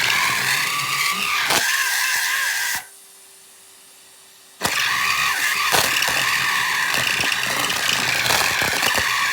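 Numatic Henry vacuum cleaner choking on pieces of a rubber glove caught in its hose: a loud, rough flapping and squealing racket over the motor. It breaks off suddenly about three seconds in, leaving only the motor's steady hum for a couple of seconds, then comes back just as loud.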